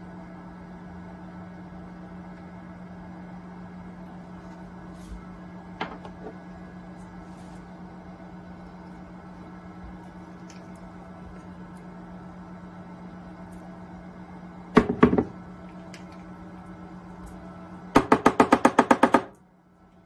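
Microwave oven running on its non-fry (oven) setting with a steady hum. A short burst of loud beeps comes about fifteen seconds in, then a rapid run of about a dozen beeps near the end, after which the hum stops as the cooking cycle ends.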